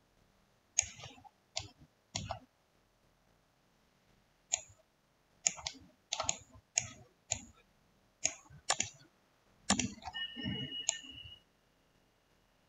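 Computer mouse clicking: a dozen or so short, sharp clicks at irregular intervals, some in quick pairs.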